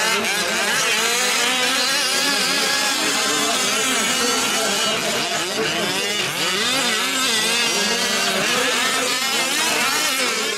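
Several 1/5-scale RC trucks' small two-stroke gas engines running together, each revving up and easing off in overlapping rising and falling whines as they race around the track.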